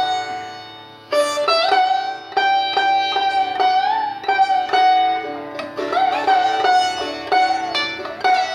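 Instrumental background music on a plucked string instrument, with sharply struck notes that ring on and sometimes bend in pitch.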